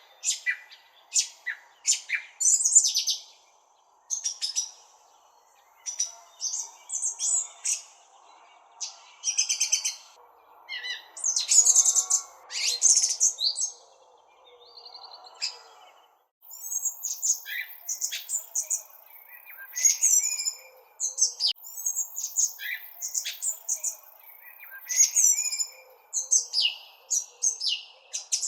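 Several small songbirds chirping and trilling, short high calls coming in quick bursts one after another, over a faint steady background hiss.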